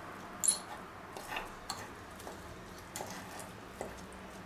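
Two metal forks pulling apart cooked pork on a wooden cutting board: a handful of light, irregular clicks as the tines tap together and against the board, with soft scraping between.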